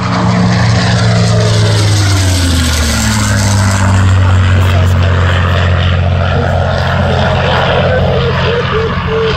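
P-51 Mustang's V12 Merlin engine at full power on a low pass, loud. Its drone drops in pitch about two to three seconds in as the aircraft goes past, then holds steady and lower as it flies away.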